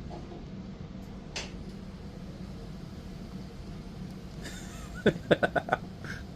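Home elevator running with a steady low hum as the car rises while the button is held. About five seconds in, a quick series of five or six short pitched sounds stands out above the hum.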